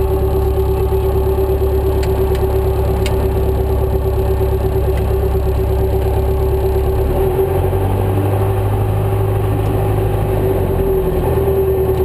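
Light aircraft's piston engine and propeller running at low taxi power, heard from inside the cockpit as a steady drone with a constant hum. The low engine note changes slightly about seven seconds in and shifts back near the end.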